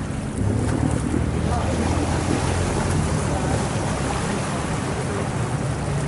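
A boat's engine running steadily, a low drone under a haze of wind and water noise on the microphone. It gets louder about half a second in.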